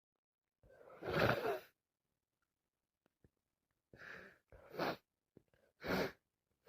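A woman with a head cold breathing: a sighing breath about a second in, then three short, fainter breaths near the end.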